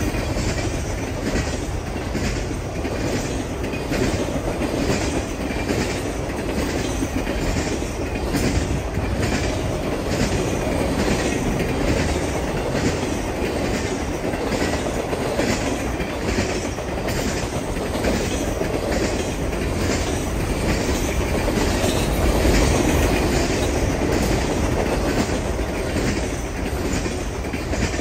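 Triple Crown RoadRailer trailers on rail bogies passing at speed: a steady rumble of steel wheels on rail with a regular clickety-clack as the wheelsets cross rail joints.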